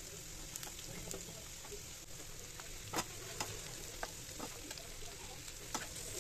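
Sliced onions frying gently in hot oil with garlic and chilli in a nonstick pan, a faint steady sizzle with scattered crackles. A spatula stirs them, clicking against the pan, with one sharper click about three seconds in.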